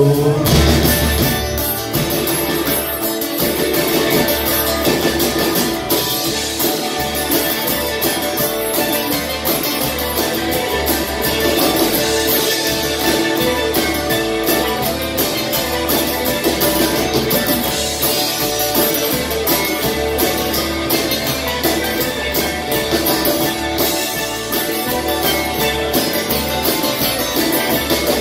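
Live band playing an instrumental stretch: guitars out front over a steady bass and drum beat.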